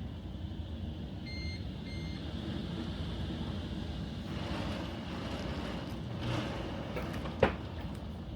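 Heavy rain and wind from a severe thunderstorm, a steady roar, with two short electronic beeps about a second in and a single sharp knock near the end.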